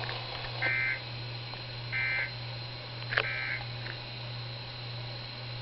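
Three short warbling data-tone bursts over a weather radio broadcast, about a second and a half apart, each lasting about a third of a second. They are typical of the SAME alert header that comes before a new warning message. A steady low hum runs underneath, with a click just before the third burst.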